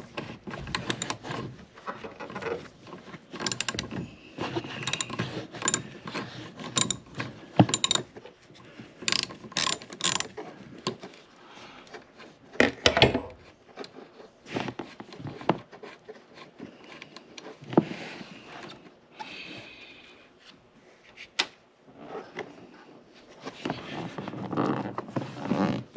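Ratchet socket wrench clicking in irregular runs as it turns the wiper arm nut loose. Occasional louder knocks of tool and parts being handled come in between.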